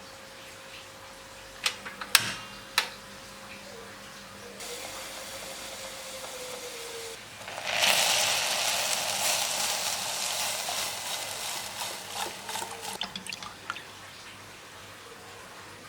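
A few sharp clicks, then water runs from a kitchen tap for about six seconds, starting suddenly and fading out near the end.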